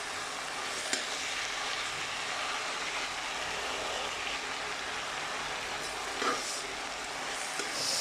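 Bottle gourd and hilsa fish sizzling steadily in a pan of oil, with two short knocks, about a second in and again past six seconds.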